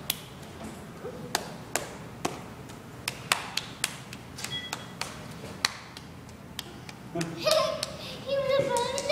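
A child's hand claps, single and scattered at uneven intervals. A voice comes in near the end.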